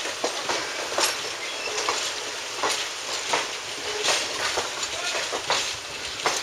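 Passenger coaches of a train rolling past, their wheels clicking unevenly over the rail joints, about one to two clicks a second.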